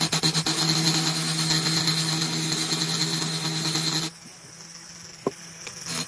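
Ryobi ONE+ HP 18V brushless cordless rotary tool spinning a carbide burr against the aluminium intake port of a Predator 212 cylinder head, porting it: a steady high whine with rough grinding. It chatters in quick pulses at first, cuts off suddenly about four seconds in, and starts again near the end.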